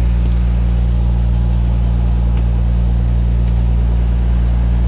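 Fishing boat's engine running steadily, a deep, even drone with a thin high whine running through it.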